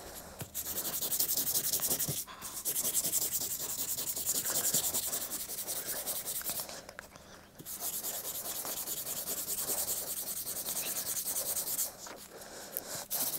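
Hand sanding: abrasive paper rubbed in fast back-and-forth strokes over a Royal Enfield Classic 350's aluminium alloy engine side cover to rub out scratches. It comes in two long spells with a short pause between them and a brief last burst near the end.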